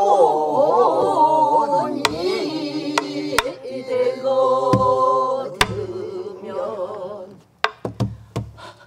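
A woman singing pansori in long, wavering held notes, accompanied by sharp strokes on a buk barrel drum beaten with a stick and the open hand. The singing dies away about seven seconds in, leaving a few drum strokes near the end.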